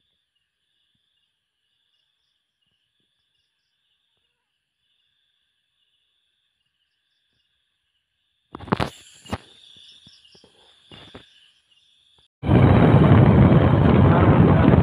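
Faint insect chirping in short, evenly repeating pulses. About eight and a half seconds in come a few clicks and knocks, and near the end a loud, steady rushing noise cuts in suddenly.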